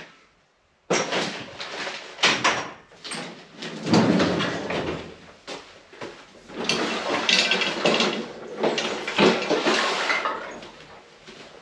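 A walk-behind Ryan core aerator clanking, knocking and rattling as it is wheeled and turned around by hand. It is a run of irregular knocks and clatters that starts about a second in.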